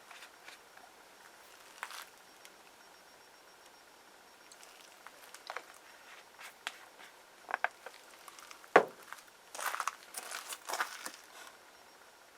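Small handling noises: scattered light clicks and crinkling, with one sharp click about nine seconds in followed by a short run of crackly rustling.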